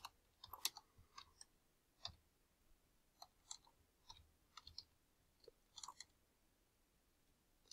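Faint computer keyboard keystrokes: slow, irregular typing, about a dozen short clicks.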